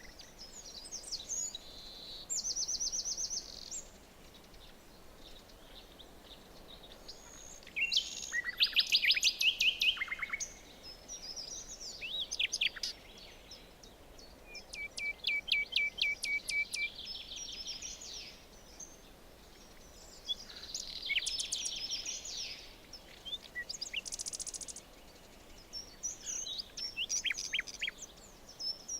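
Songbirds singing in a forest, several phrases of quick high notes and trills with short pauses between them, over a faint steady background hiss. The loudest phrase comes about eight seconds in.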